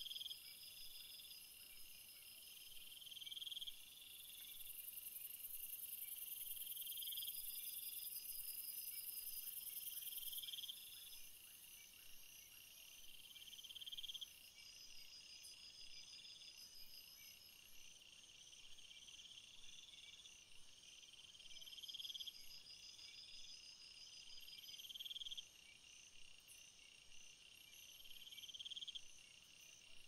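Faint crickets and other insects chirping: a swelling trill repeats about every two seconds, with a quicker pulsed chirp above it. A high, thin buzz joins from about four seconds in and is the loudest thing until it stops about ten seconds in.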